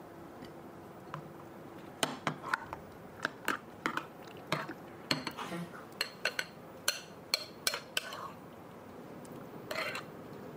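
Metal spoon stirring chopped strawberries into a thick Greek yogurt mixture in a bowl. From about two seconds in it clinks and scrapes against the bowl in a quick, irregular series of sharp taps.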